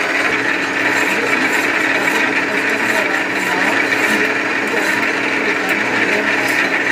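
A metal lathe running steadily: an even, continuous machine whir with a low steady hum underneath.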